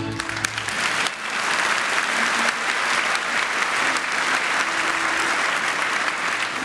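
Audience applauding, swelling about a second in as the music stops.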